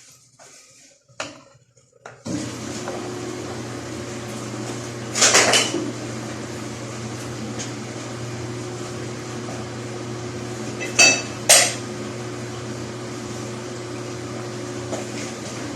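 A washing machine starts up about two seconds in and runs with a steady electric hum. Sharp metallic clinks come about five seconds in and twice more near eleven seconds.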